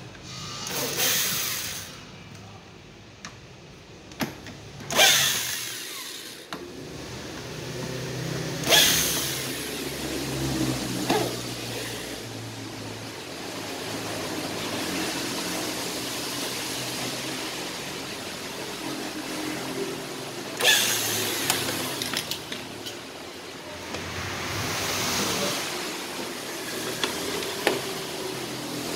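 Corded electric drill used as a screwdriver on the plastic evaporator housing of a Kia Picanto, whirring in short runs as screws are driven out, with sharp knocks and rattles of the plastic housing between runs.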